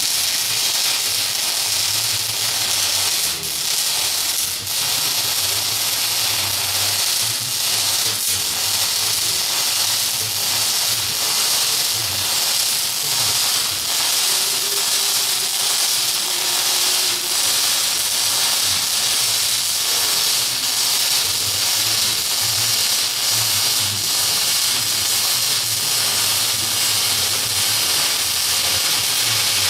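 Welding arc crackling and hissing steadily without a break, over a low electrical hum.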